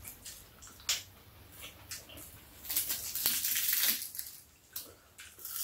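Metal chopsticks clicking and tapping against bowls and dishes during a meal, with a crackling, rustling noise lasting about a second starting around three seconds in.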